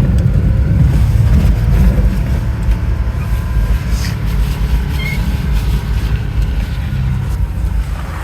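Modded racing lawn mower's engine running steadily, with a low, continuous engine note that eases off slightly toward the end.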